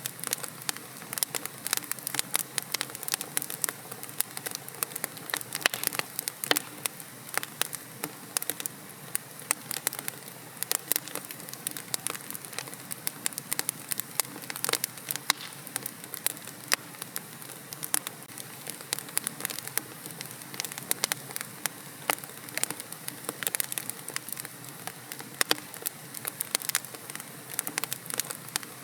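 Wood fire burning in a fireplace, crackling and popping with many irregular sharp snaps over a steady soft hiss.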